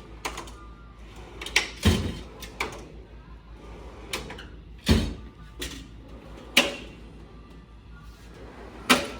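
A series of sharp knocks and clunks at uneven intervals, about nine in all, the loudest near the middle and near the end.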